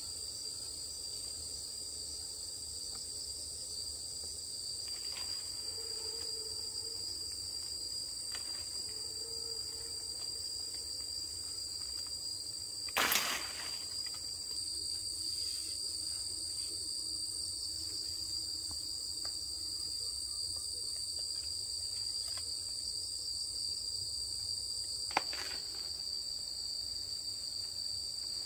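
Steady insect chorus, crickets or cicadas, holding two high, unbroken pitches. About halfway through, a brief loud noise cuts across it, and there is a sharp click near the end.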